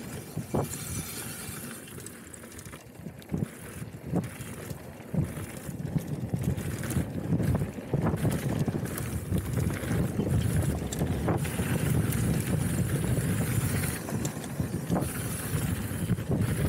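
Wind rushing over the microphone and the tyres of a hardtail mountain bike rumbling over a rough trail, with scattered sharp knocks and rattles from the bike. It gets louder from about eight seconds in.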